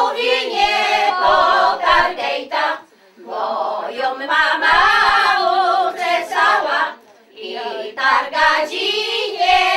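Women's voices singing an unaccompanied Polish folk wedding song of the Sieradz region, a capping-rite (oczepiny) song sung while the bride's wreath is taken off. Long wavering phrases are broken by short pauses about three seconds in and again near seven seconds.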